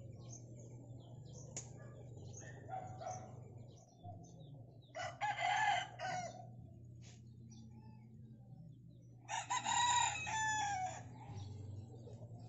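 A rooster crowing twice, about five seconds in and again about nine seconds in, each crow lasting a second or so, with small birds chirping.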